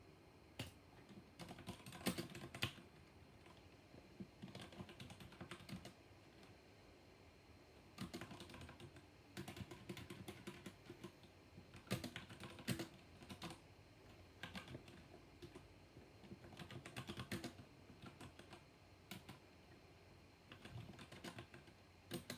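Typing on a mechanical keyboard with black linear switches: bursts of key presses lasting a second or two, broken by short pauses.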